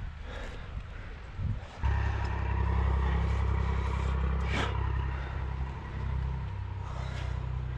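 A vehicle engine running steadily, coming in suddenly about two seconds in as a low rumble with a faint steady hum above it.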